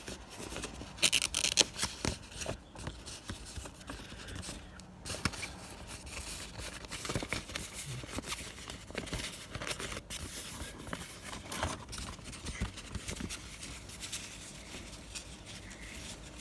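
Blu-ray and DVD cases being handled, with irregular plastic clicks, scrapes and rubbing, loudest about a second in.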